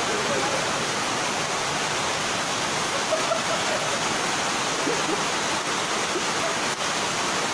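Muddy floodwater rushing and pouring in a steady, continuous torrent.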